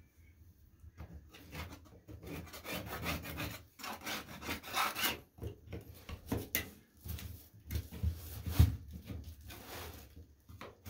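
A hand scraper scraping old wax and grime off a toilet flange and the floor around it in quick, irregular strokes, with one sharper knock a little past two thirds of the way through.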